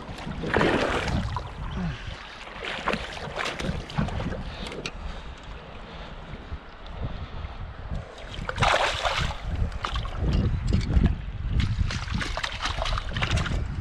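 Wind buffeting the microphone beside running river water, with scattered clicks and two louder bursts of noise, one about half a second in and one about eight and a half seconds in.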